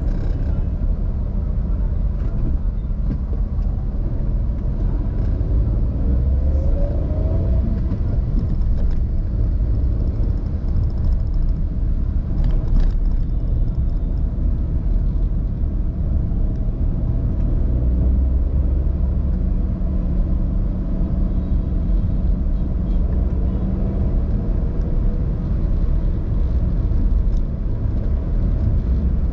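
Steady low rumble of a car driving on the road: engine and tyre noise.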